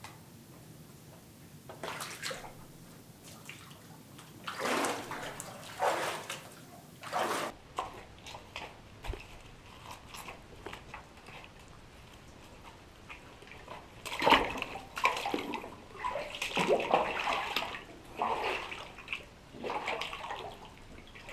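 Water sloshing and splashing in irregular bursts, sparse at first and then a busier run of splashes from about two-thirds of the way in.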